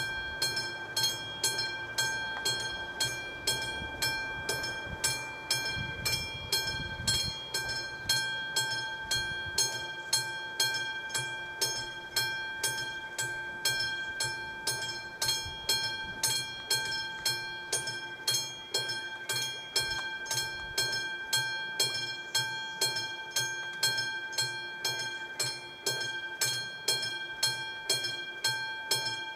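Classic mechanical warning bell of an AŽD 71 level-crossing signal ringing in an even, steady beat of about two strikes a second, the warning that the crossing is closed for a train. A low rumble underneath dies away about twenty seconds in.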